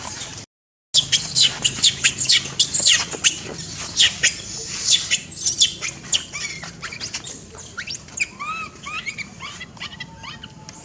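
Infant long-tailed macaque squealing: a rapid run of high, arching, shrill calls, loudest in the first half, thinning into softer, lower calls near the end. The sound cuts out briefly about half a second in.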